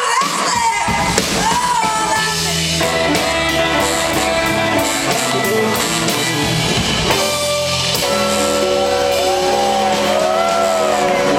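Blues-rock band playing live, heard from the audience: electric guitars over bass, drums and cymbals, with a lead line whose notes bend and glide and are held long in the second half.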